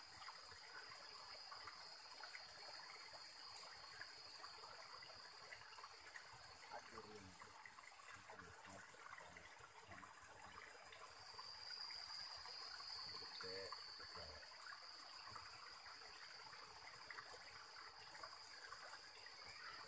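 Faint creek water trickling into a shallow rock pool, with a steady high-pitched insect buzz over it.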